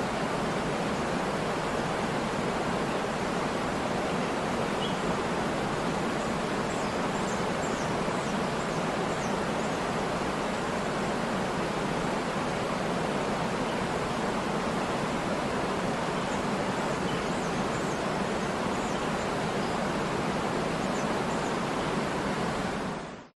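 Waterfall rushing steadily, with a few faint high chirps over it; the sound fades out quickly at the very end.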